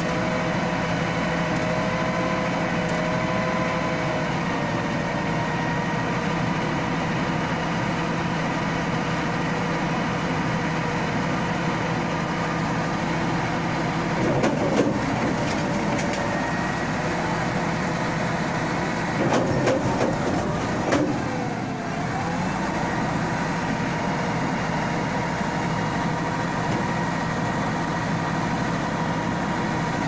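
Large crawler bulldozer's diesel engine running steadily, with a few louder metallic clanks around the middle and a brief dip and rise in engine pitch about two-thirds of the way through.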